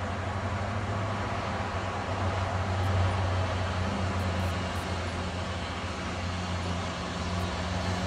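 Steam tank locomotive rolling slowly: a steady hiss with a low hum and no distinct chuffs.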